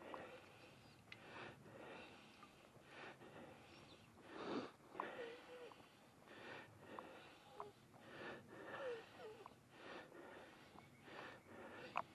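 Faint footsteps walking across a grassy lawn with dry fallen leaves, a soft step a little more often than once a second.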